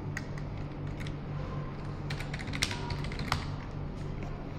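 Computer keyboard typing: irregular keystrokes while an email address is entered, over a low steady hum.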